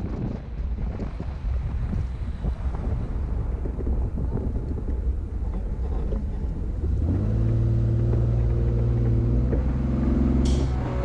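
Off-road 4x4 driving over a rough track: a bumpy rumble with wind noise. About seven seconds in, a steady engine drone at held revs comes up over it.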